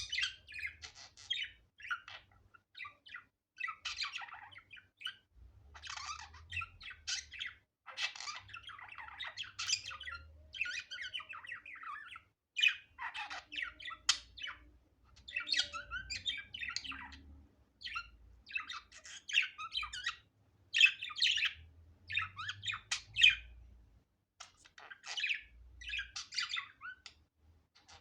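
Budgerigar chattering and warbling: rapid runs of squawks, chirps and clicks in phrases of a second or two, with short pauses between them.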